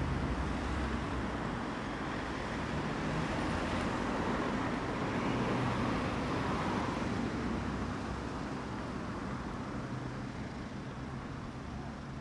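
Road traffic on a city street: a steady rumble of car engines and tyres that swells gently about halfway through as a car goes by, then slowly fades.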